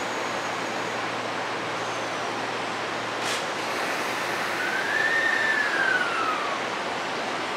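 Electric train moving through a station: steady rolling noise, a single sharp knock about three seconds in, and a high tone that rises and then falls in pitch over about two seconds in the second half.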